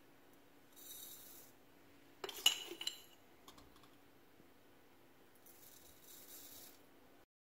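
Instant coffee granules poured from a spoon into a glass bowl, a soft hiss about a second in and again near the end. Between them comes a quick cluster of clinks of a spoon against the glass, the loudest sound. A faint low hum runs underneath.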